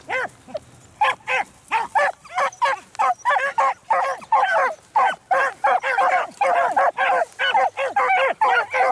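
Beagles baying while running a rabbit's scent trail. Short, rapid barking calls come several a second and overlap, after a brief lull just after the start.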